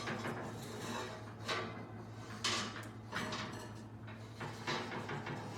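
Cast iron skillet being pulled from an oven, with several separate scrapes and clanks of iron against the oven rack as it slides out and is lifted. A steady low hum runs underneath.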